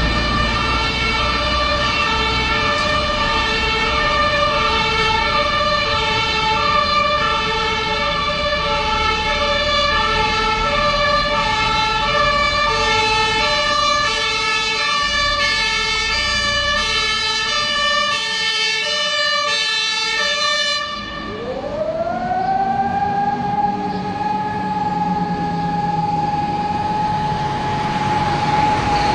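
An HLF 20 fire engine's two-tone horn alternates between two pitches, with the truck's engine running underneath. After a sudden cut about twenty seconds in, a motor-driven alarm siren winds up in a rising wail and then holds one steady tone, sounding the fire alarm for the volunteer crews.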